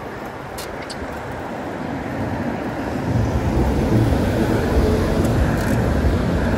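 Wind buffeting the microphone of a moving bicycle, mixed with the noise of cars on the road; the rush grows louder about three seconds in.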